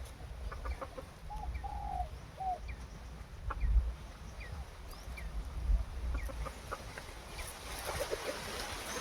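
A chicken clucking: three short arched clucks a little over a second in, with faint short chirps scattered through and a low rumble underneath.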